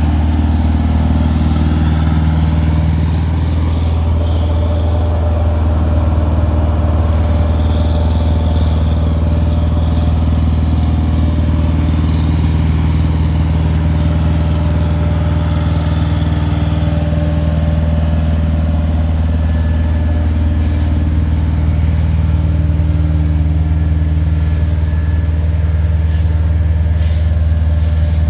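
An engine running at a steady speed: a deep, even drone that does not change.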